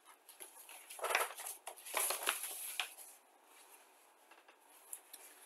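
Paper rustling and crinkling as a fold-out kit instruction sheet is handled, loudest from about one to three seconds in, then fading to a few faint rustles.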